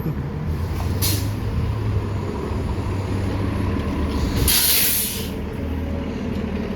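Transit bus engine idling with a steady low rumble, with two hisses of air from the air brakes: a short one about a second in and a longer, louder one near the middle.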